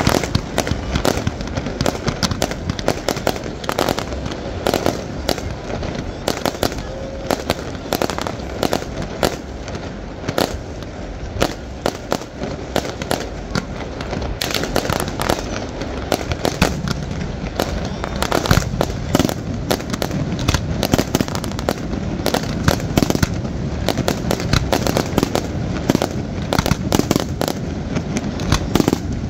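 Fireworks display: a dense, continuous barrage of bangs and crackles, several reports a second, over a steady low rumble.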